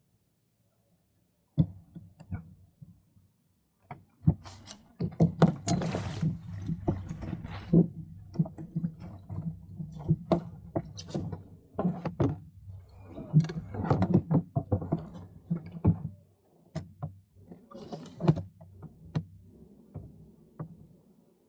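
Knocks and thunks on the hull of a 1965 Sunfish sailboat as the sailor pushes off and climbs aboard, with water sloshing and splashing against the hull. The knocks come thick and irregular through the middle and thin out near the end.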